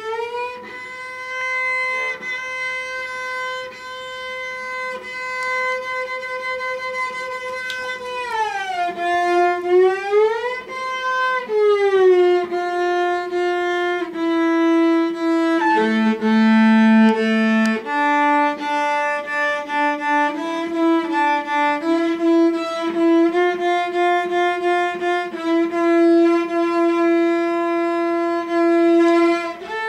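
Cello played with a bow: a long held note, a slow slide down and back up, then shorter changing notes. A small dachshund howls along.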